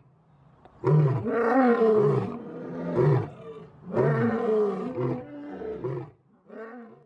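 Male lion roaring: a bout of deep, repeated calls that starts about a second in.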